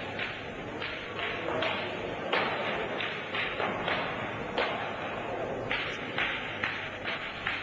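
Irregular thuds and taps from two Kalaripayattu fighters sparring barefoot, their footfalls and strikes coming in short uneven bursts, under a steady hiss and a faint steady whine.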